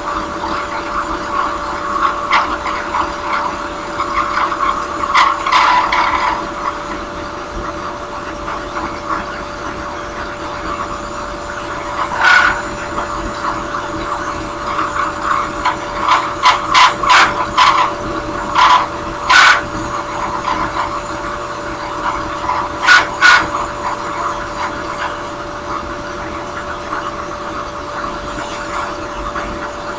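Drill press spinning a small sanding drum with a steady hum, as a briar pipe block is pressed against it in short passes, each contact a brief rough grinding rasp; a quick run of them comes just past the middle.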